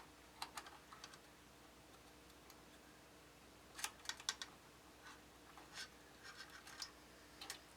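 Faint small clicks and scratches of plastic front-panel connector plugs being handled and pushed onto motherboard header pins, in scattered groups with a cluster about four seconds in and more near the end, over a faint steady hum.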